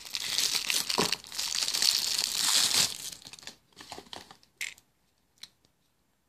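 Packaging crinkling and rustling for about three seconds as the knife is unwrapped, then a few light clicks and taps that thin out, and near silence after.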